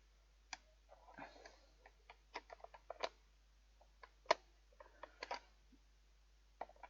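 Irregular small clicks and taps of a screwdriver and a fan heater's plastic casing being handled while a triangle-head screw is driven in with an ordinary screwdriver. The clicks come in scattered groups, the sharpest about four seconds in.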